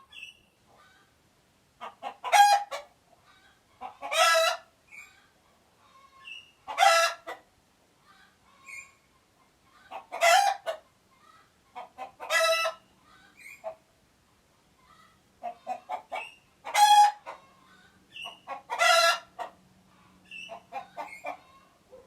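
Chicken calling: runs of quick short clucks, each building into a loud, harsh squawk, about seven times.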